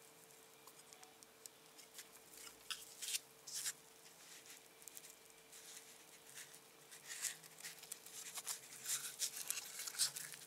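Light clicks and scratchy rustles of fingers handling a circuit board pressed onto its foam pad, in scattered bursts, a few about three seconds in and busier in the last few seconds. A faint steady hum runs underneath.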